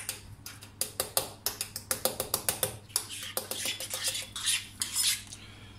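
A fork pricking pizza dough in a steel baking tray: a quick, irregular run of sharp clicks, several a second, with a few softer rasps in the second half.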